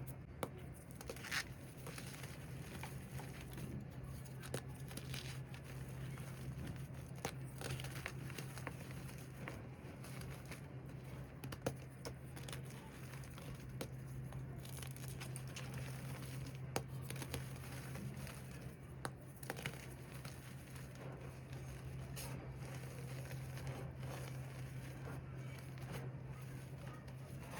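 Reformed cornstarch slab topped with loose cornstarch being pressed and crumbled by hand: irregular soft crunches and crackles with the squeak of packed starch, over a steady low hum.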